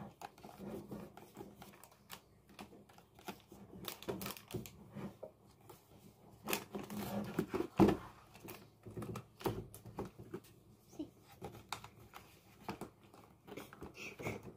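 Irregular plastic clicks, taps and knocks from handling a toy mini claw machine: its plastic door and casing are opened, tilted and pushed at as small plush toys are fed in. The loudest knock comes about eight seconds in.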